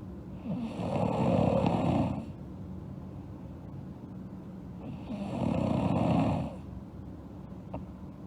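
A sleeping girl snoring: two long snores about four seconds apart, each lasting under two seconds, with quieter breathing between them.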